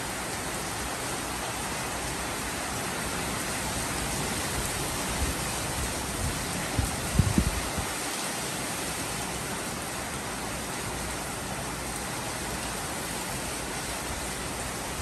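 Heavy tropical rain pouring steadily, a dense even hiss of downpour on leaves, pavement and roofs. A few short, low thumps come about halfway through.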